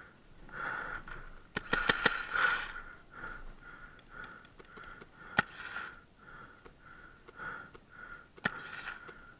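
Fast, rhythmic breathing of a paintball player close to the mic, about two breaths a second, inside the face mask. A quick volley of three or four sharp paintball pops about two seconds in, and single pops past the middle and near the end.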